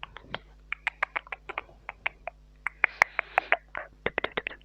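Close-miked ASMR mouth sounds: a quick, irregular run of wet tongue and lip clicks, with a short breathy hiss about three seconds in.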